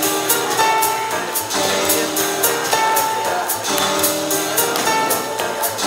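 Music with a quick, steady tapping beat over held chords, repeating in short phrases.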